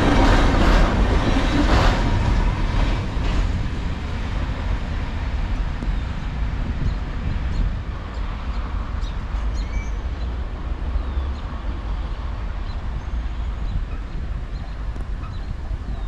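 Last cars of a CSX freight train rolling past, wheels clacking over the rail joints for the first three seconds or so, then the rumble dying away as the train moves off.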